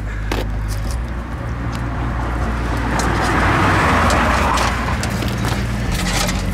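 A motor vehicle engine running steadily with a low hum, with a rush of noise that swells and fades in the middle.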